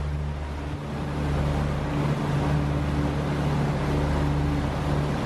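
A sailing catamaran's inboard diesel engine running steadily under way, a low even hum, with wind noise over it; it gets a little louder about a second in.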